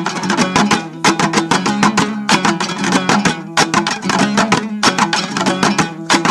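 Instrumental break in a Dari folk song: a plucked string instrument strummed in fast, even strokes over a steady low drone.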